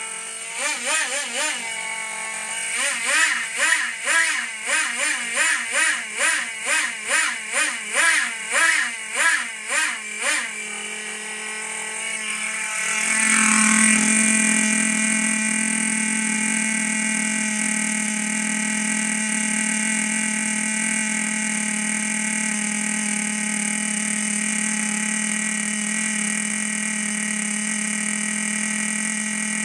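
Thundertiger SSK's two-stroke nitro (glow) engine running, revved up and down in quick throttle blips about twice a second, then holding a steady speed after a single brief surge.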